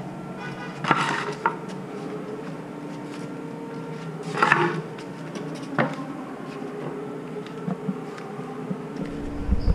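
A few knocks and scrapes from a child's plastic three-wheeled kick scooter being handled on a concrete floor, about a second in, around four and a half seconds and near six seconds, over a steady low background hum.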